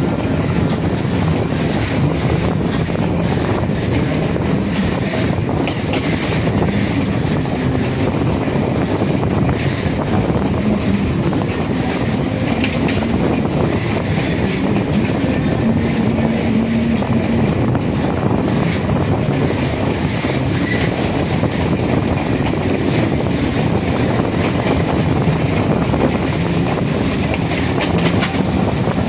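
A train running along the track with a steady rumble and the clickety-clack of its wheels on the rails.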